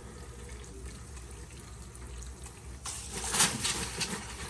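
Hot water from a diesel combination water heater turned on about three seconds in, a sudden hiss of running, spraying water over a faint steady low hum.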